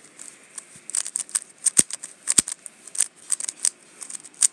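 Magnetic Valk 3 Power M speedcube being turned fast in a timed solve: a quick, irregular run of sharp plastic clicks as the layers snap around.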